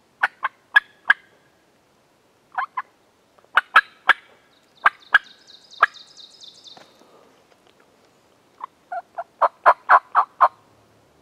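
Turkey yelping: several series of short, sharp, evenly spaced notes, ending in a run of about eight that grows louder near the end.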